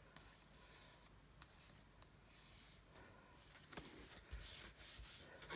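Faint rustling and sliding of cardstock being handled against a craft mat, in several soft swishes, with a light tap a little under four seconds in.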